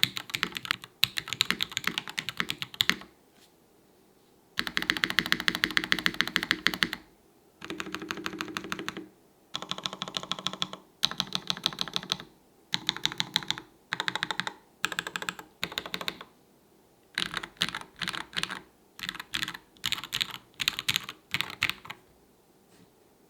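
Typing on a Mason 60 tray-mount 60% mechanical keyboard with Strawberry Ice linear switches, a brass plate and PBT keycaps: fast runs of keystrokes in bursts of a few seconds with short pauses between them, stopping about a second before the end.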